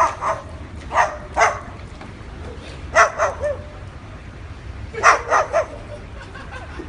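Parrot imitating a dog, giving short barks in small groups: a pair, another pair, three, then a quick run of four, with pauses between.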